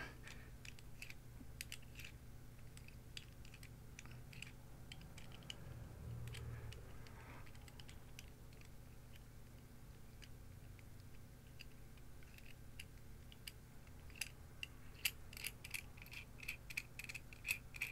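Faint scattered clicks and taps of a metal measurement microphone being handled and fitted into a plastic mic clip, coming more often near the end, over a low steady hum.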